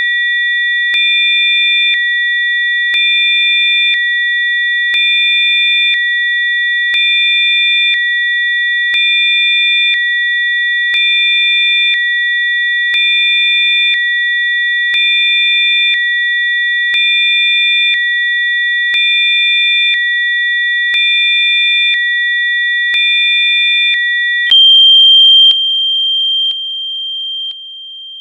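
Electronically generated Rife-frequency sine tones: three steady high pitches sounding together, stepping slightly louder and softer about once a second with a faint click at each change. About 24 seconds in they give way to a single different steady tone over a faint lower one, which drops in level in steps near the end.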